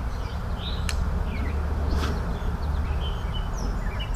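Small birds chirping in short, quick calls over a low, steady rumble, with two sharp clicks about one and two seconds in.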